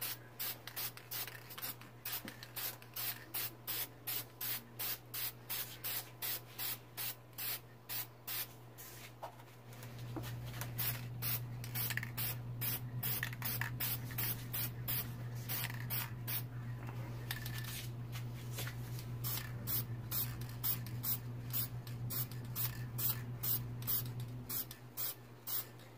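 Aerosol spray-paint can sprayed in short hissing bursts, about two a second at first, then in quicker, less even bursts from about ten seconds in. A steady low hum runs underneath.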